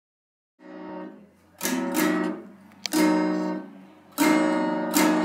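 Acoustic guitar strummed in slow single chords, each left to ring: a soft chord under a second in, then several firm strums roughly every second to second and a half.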